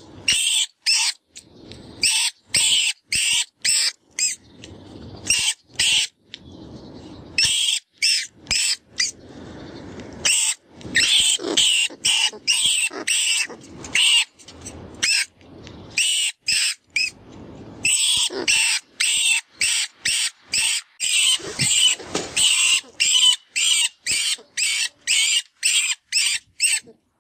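Rat distress call from a FoxPro vermin caller sound: runs of rapid, short, high-pitched squeaks and squeals, broken by brief pauses and some lower, noisier stretches.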